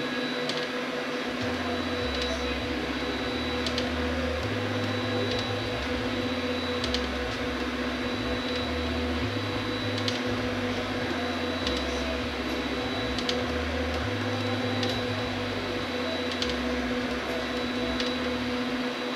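3D printer at work: a steady hum under a low motor whir that shifts pitch in steps as the moves change, with a faint click about every second and a half.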